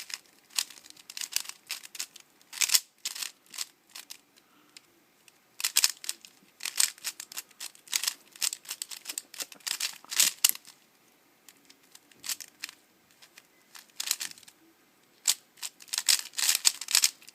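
3x3 Rubik's cube being turned quickly by hand during a speedsolve: flurries of rapid plastic clicks and clacks as the layers turn, with short pauses between runs of moves.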